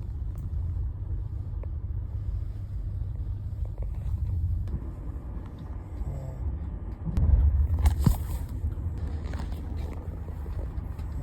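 Steady low rumble of a train running, swelling louder about seven seconds in, with a sharp click about a second later.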